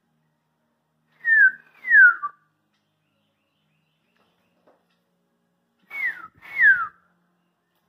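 A person whistling two falling slurred notes, then after a pause two more, in imitation of a northern cardinal's song.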